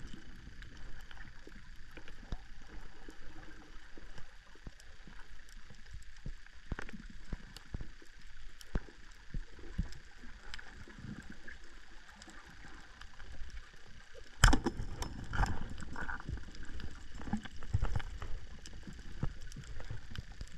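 Underwater reef ambience heard through a camera housing: a steady hiss of water with scattered small clicks and crackles. About two-thirds of the way in a single sharp, loud knock stands out, followed by busier knocking and water movement.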